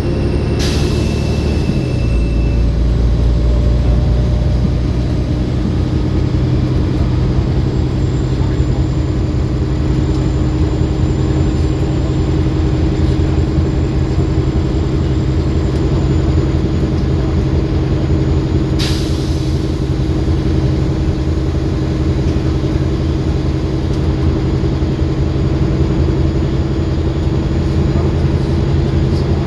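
Olympian double-decker bus's diesel engine running steadily, its low note deepening about two seconds in, with a thin high turbo whine over it. Two short hisses of air, one near the start and one about two-thirds of the way through.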